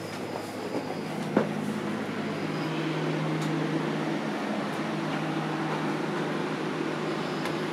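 Steady low mechanical hum that shifts up in pitch and grows slightly louder a little over two seconds in, with a single sharp click about a second and a half in.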